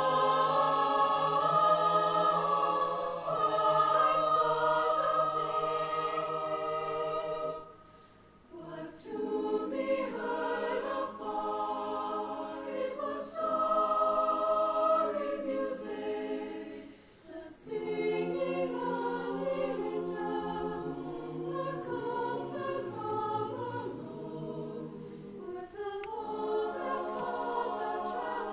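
High school mixed choir singing together, pausing briefly between phrases about eight and seventeen seconds in.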